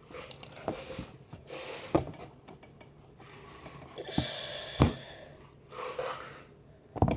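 Scattered knocks and clunks of objects being handled, a few of them sharp, with short scraping and rustling in between.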